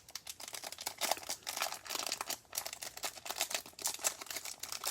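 Crinkling and crackling of a trading-card pack wrapper as it is handled and torn open, many small irregular crackles.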